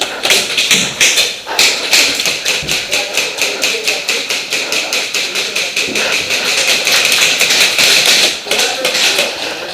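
Airsoft guns firing in rapid, sustained strings of sharp clacks, several shots a second, easing off near the end.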